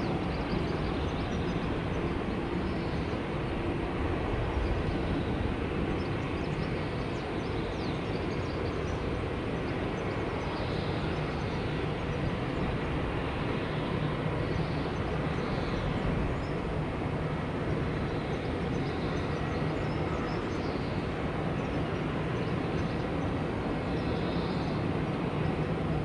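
Steady rumble of jet aircraft engines running at an airport, even in level with no rise or fall, with faint high chirps now and then.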